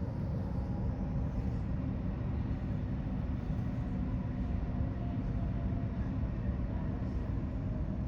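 Steady low mechanical rumble with a few faint steady hum tones over it, even throughout.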